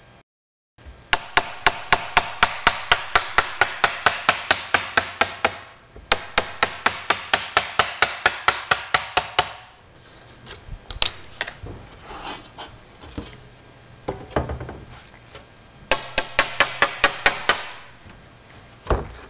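Glass cutter tapping along a freshly scored line in a sheet of mirror glass to run the score before the break. The taps are sharp and ringing, about five a second, in three runs, with a few softer knocks between the second and third runs.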